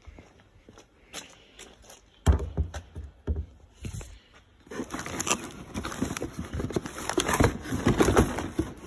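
A cardboard box being handled: irregular rustling and scraping that starts about halfway in and keeps on, after a few low bumps from the phone being moved.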